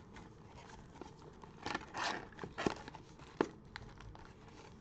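Cardboard retail box of trading cards being opened by hand: soft rustling and scraping of the lid and flaps, with a few light taps and one sharper click about three and a half seconds in.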